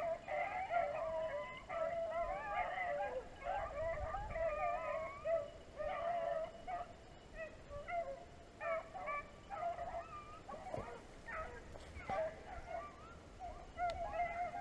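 A pack of beagles baying as they run a rabbit's trail, many voices overlapping at first, then thinning to scattered bays from about halfway through.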